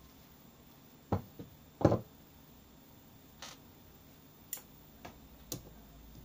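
Scattered sharp clicks and knocks of metal tools handled on a wooden desktop: long-nose pliers and a thin steel rod set down and touched against a small magnet. The loudest knocks come about one and two seconds in, with lighter ticks after.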